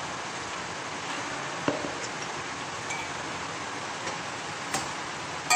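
Metal spoon stirring rice flour and hot water in a bowl, giving a few light clinks, then a louder ringing metallic clink near the end, over a steady background hiss.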